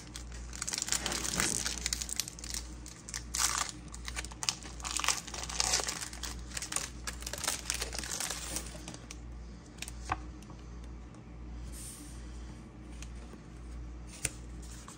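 Foil wrapper of a Pokémon booster pack crinkling and being torn open in repeated bursts over the first several seconds, then quieter rustling of the cards with a sharp click about ten seconds in and another near the end.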